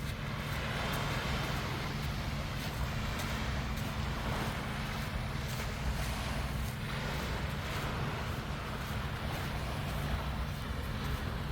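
Sea waves washing in repeated swells that rise and ease every second or two, over a steady low hum.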